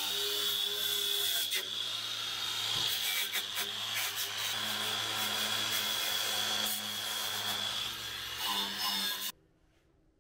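Angle grinder running with its abrasive disc pressed against rusty sheet steel, a steady grinding noise over a high motor whine. It stops abruptly about nine seconds in.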